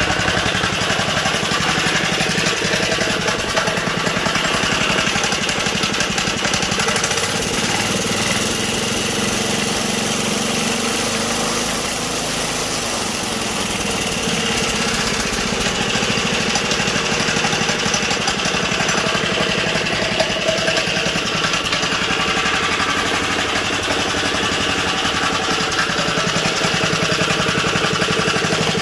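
A Tecumseh HS-50 single-cylinder four-stroke engine on a mini bike, running steadily, with a slight dip in speed about halfway through. Its carburetor has just been cleaned and is being tuned.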